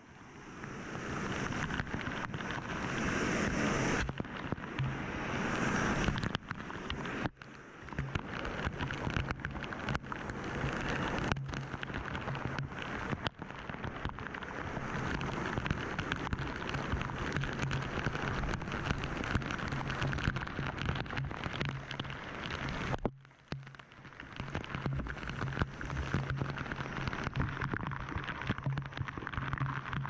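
Steady roar of rushing water, a dense even noise, broken by a few abrupt cuts where the sound drops out and starts again.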